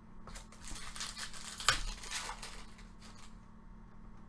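Trading cards and their packaging being handled: a stretch of papery rustling and sliding with one sharp click about one and a half seconds in.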